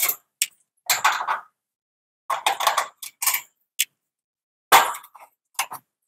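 Sheet-metal hinged louver panels of a Lennox outdoor condensing unit rattling and clanking in a series of short, irregular bursts as they are swung open and lifted off.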